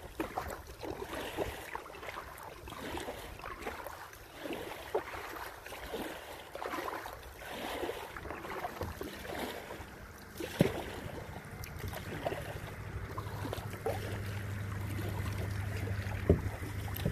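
Water splashing and lapping at a kayak as it is paddled across calm water, in many small irregular splashes. A low steady hum comes up in the second half as the kayak draws near a moored cruise boat.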